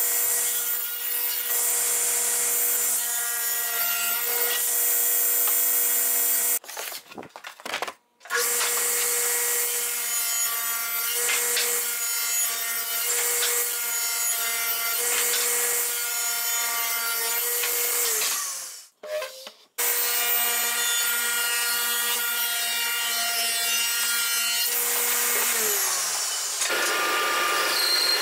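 Table saw running with a steady hum and the hiss of the blade cutting through plywood in several passes, cutting out briefly twice. Near the end the table saw's hum drops away and a band saw takes over, cutting a wooden board.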